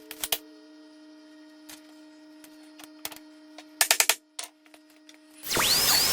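Dremel 3000 rotary tool running with a faint steady whine, broken by a few sharp clicks, then near the end a loud harsh grinding with a wavering squeal as the cutting wheel bites into a metal hinge.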